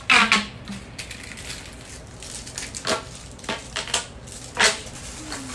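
Plastic fidget-toy packaging and toys being handled, crinkling and crackling in a few sharp bursts, the loudest right at the start.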